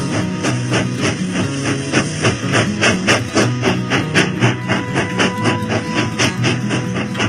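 Background music with a fast, steady beat over a bass line.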